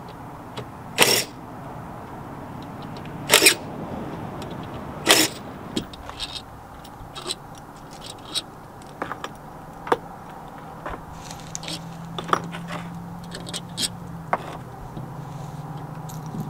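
Cordless power driver run in three short bursts on the centre bolt of a front-loading washing machine's direct-drive motor, set to loosen. After that come scattered light clicks and knocks as the motor's stator and parts are handled by hand.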